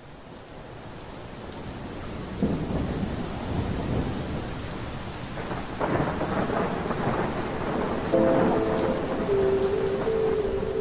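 Steady heavy rain fading in, with rolls of thunder about two and a half seconds in and again about six seconds in. Held music chords come in near the end.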